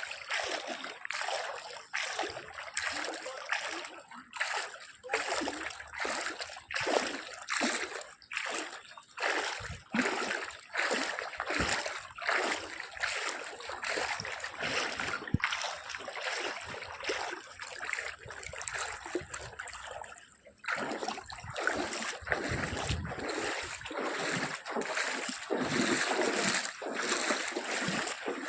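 Floodwater splashing in repeated, irregular strokes, about one or two a second, with a short pause about two-thirds of the way through.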